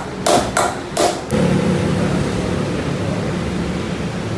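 A steel hammer striking a metal punch set against a motorcycle's rear wheel hub: three sharp blows about 0.4 s apart, driving out the hub's bush. The blows stop about a second and a half in, and a steady low hum carries on.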